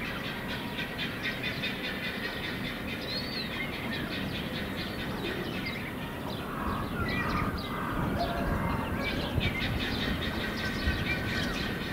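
Steady outdoor background noise with a dense, clattering texture, and a few faint bird chirps now and then.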